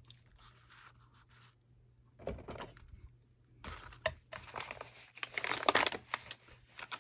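Paper and card rustling and crinkling as handmade paper notebooks are handled. There is a short burst a little over two seconds in, then a busier run of rustles and light taps through the second half.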